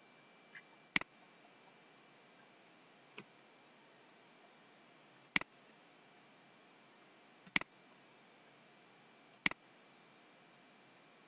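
Computer mouse button clicks: four sharp clicks a couple of seconds apart and two fainter ones, over a faint steady high-pitched whine and hiss.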